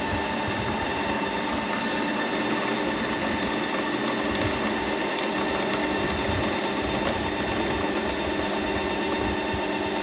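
Ninja Creami ice cream maker running its mix-in cycle, its motor and spinning paddle whirring steadily with a hum of several fixed pitches as it churns toppings into frozen sorbet.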